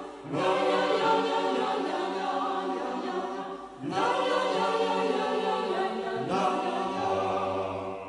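Church choir singing unaccompanied chant, in three long phrases, each beginning after a short break.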